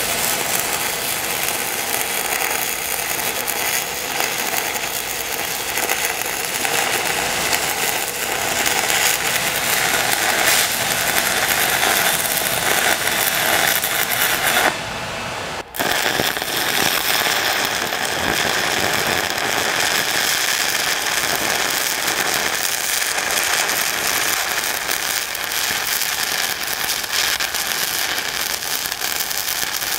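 Stick (shielded metal arc) welding with a 1/8-inch 6010 electrode: the arc crackles and sputters steadily as a root pass fills the gap between the beam's web and flange. About fifteen seconds in the arc breaks off for about a second, then strikes again and crackles on.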